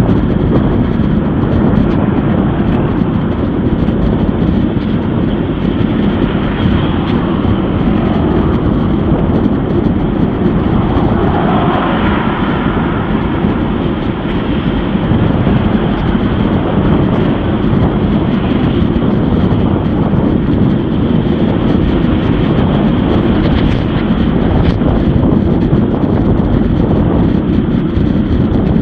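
Loud, steady wind and road rumble on a bike-mounted action camera's microphone while riding, with a brief swell of passing traffic about twelve seconds in.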